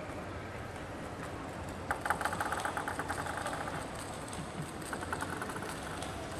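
Steady low arena hum. About two seconds in, a sharp click starts a fast run of light, ringing clicks, about ten a second, that fade out over nearly two seconds. A shorter, fainter run follows near five seconds: a table tennis ball bouncing.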